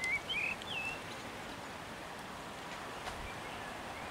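A bird chirping: a quick run of short, sweeping chirps in the first second, then a few fainter ones later, over a steady hiss of rain.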